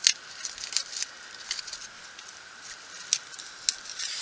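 Dry tinder being broken up and handled by hand: scattered, irregular light crackles and snaps.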